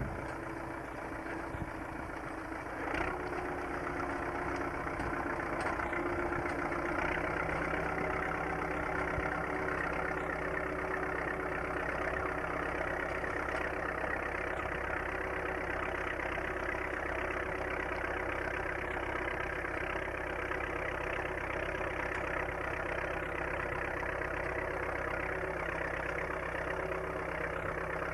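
Vintage Bukh tractor's diesel engine running steadily under load as it pulls a seed drill across the field; slightly louder from about three seconds in.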